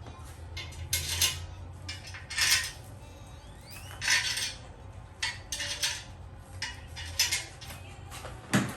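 Short, irregular clinks and scrapes of small metal parts and tools being handled, about eight separate bursts.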